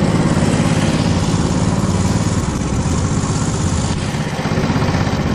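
Engine of a homemade karakat (all-terrain buggy on low-pressure tyres) running steadily under way, with a rapid even firing beat.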